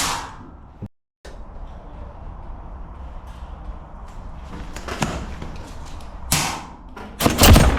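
Airsoft gun shots: a few sharp cracks over steady background noise, the loudest cluster near the end, with a brief cut to silence about a second in.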